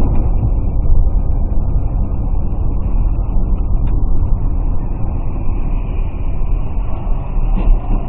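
Steady road and engine noise inside a car cruising on a highway, picked up by a dashcam microphone: a constant low rumble with no distinct events.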